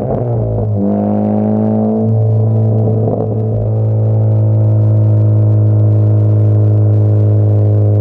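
Honda Civic Type R FK8's turbocharged four-cylinder through a Tomei full-titanium muffler at cruising speed: the pitch shifts a few times in the first seconds, then settles into a steady low exhaust drone from about four seconds in.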